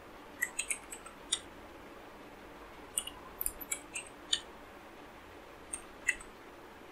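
Computer keyboard typing: irregular keystroke clicks in short clusters with pauses between them.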